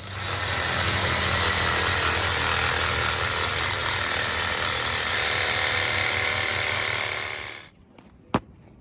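Reciprocating saw running steadily as it cuts the toe off a hard, overgrown horse hoof, stopping abruptly near the end. A single sharp click follows shortly after.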